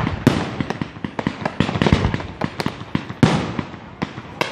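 Aerial fireworks display: a rapid string of sharp bangs from bursting shells, with crackle between them and one louder bang a little after three seconds in.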